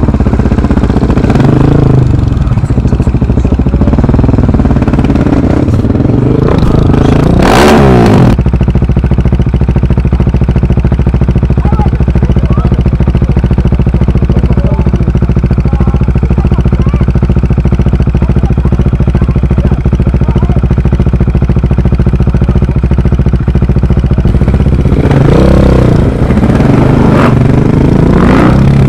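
Rally car engine revving hard, its pitch rising and falling, with a short loud rushing burst about eight seconds in. The engine then holds a steady drone for over fifteen seconds before revving up and down again near the end.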